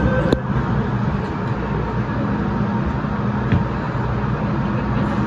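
MTR Island Line M-train running through a tunnel, heard from inside the car: a steady, loud rumble of wheels and running gear on the track. A click comes a fraction of a second in, as a steady whine heard just before it stops.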